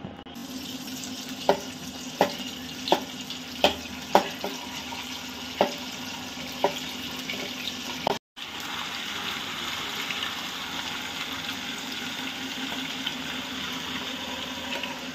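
Ghee melting and sizzling in a metal kadai, with a perforated metal ladle clinking against the pan about seven times in the first half. After a brief break about eight seconds in, the sizzle goes on steadily.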